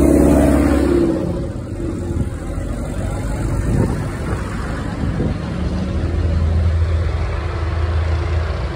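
Vintage farm tractor engines running as tractors drive past. The loudest is close by in the first second and fades, leaving a steadier low rumble of tractors further off that grows again near the end.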